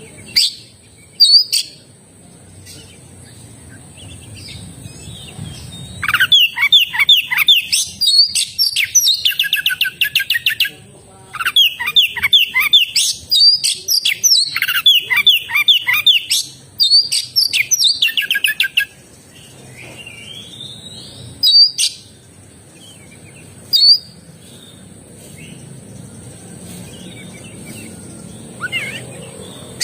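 Oriental magpie-robin (kacer) singing in full voice. A few short whistled calls come first, then a run of rapid, varied phrases lasting about twelve seconds, then scattered single calls before the song starts up again at the end.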